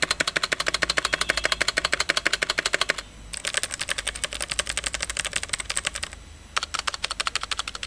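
Clicky blue-switch mechanical keyboard keys pressed in quick runs, about ten clicks a second, in three bursts with short pauses about three and six seconds in. The keys carry a rattle that the owner finds annoying.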